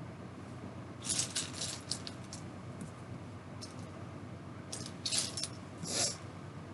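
Several short bursts of light clinking and rattling of small hard objects, with quiet gaps between them.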